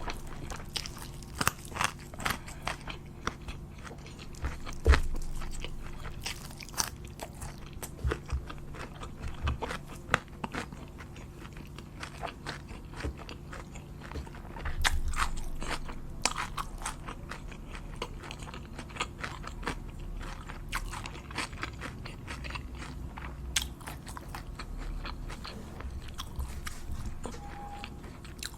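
Close-miked eating: crunchy bites and chewing, with many sharp crackling clicks throughout and a louder crunch about five seconds in.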